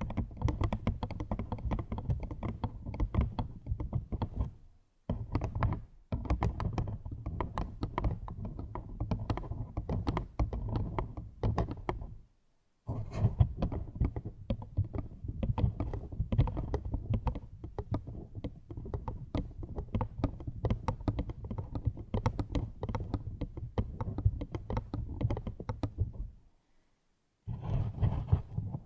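Rapid close-up tapping and clicking, dense and uneven like typing, with a heavy low thud under it. It plays in stretches cut by short dead silences about four times.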